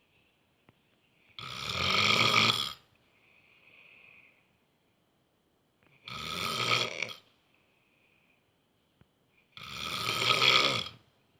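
A sleeping person snoring loudly, like a lion grunting: three deep snores about four seconds apart, each lasting over a second, with a fainter, higher breath sound between the first two.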